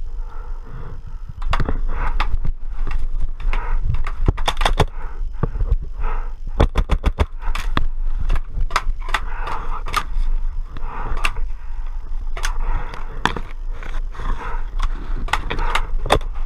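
Paintball markers firing: a string of sharp pops, some single and some in quick bursts, with one rapid run of about ten in a second midway, over a steady low rumble.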